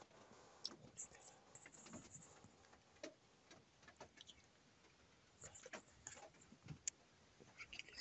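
Near silence inside a car cabin, broken by faint scattered clicks and soft rustles.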